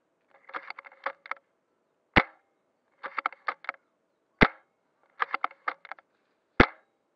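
Airsoft gun firing three single shots about two seconds apart, with a quick run of small clicks before each shot.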